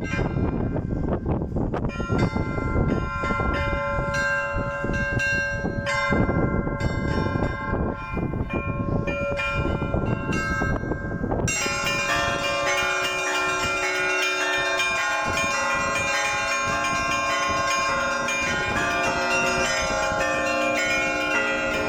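Russian Orthodox belfry bells ringing a trezvon: many bells of different sizes struck in quick succession, small high bells chiming densely over deeper ringing tones. About halfway through, a low rumble underneath stops suddenly, and the bells ring out clearer and brighter.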